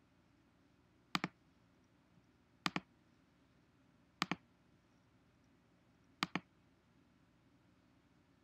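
Computer mouse clicking four times, a couple of seconds apart, each a quick pair of clicks from the button going down and up, as menus and settings are picked.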